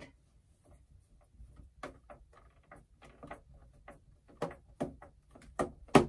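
Plastic back case of an HP Pavilion 23 all-in-one clicking and cracking as a screwdriver pries at its seam, the sound of the snap clips giving way. A run of irregular small clicks that come closer together later on, with a sharp, louder crack just before the end.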